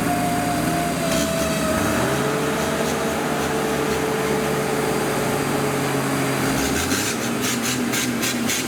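Off-road 4x4 engine running under load during a recovery pull. Its pitch steps up about two seconds in and then holds steady, and a rapid run of clicks and knocks comes near the end.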